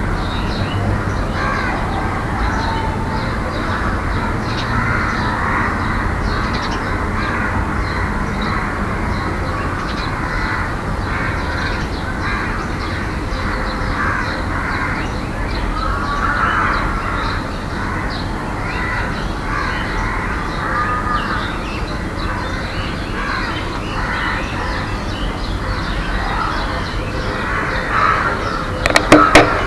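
Many birds calling and singing over a steady low rumble, with a few sharp clicks near the end.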